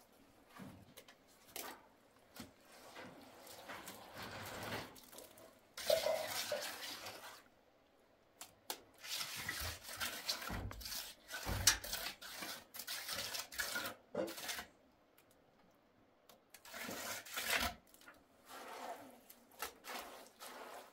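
Intermittent clattering and scraping of hard objects being handled, in irregular bursts with quiet gaps between.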